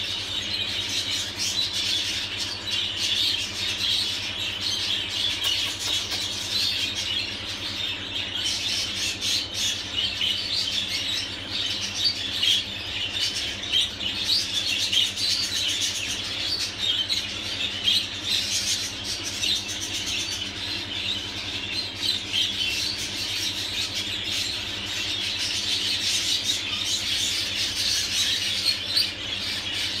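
Budgerigars chattering and chirping, a dense, continuous flock chatter of many short high chirps and squawks.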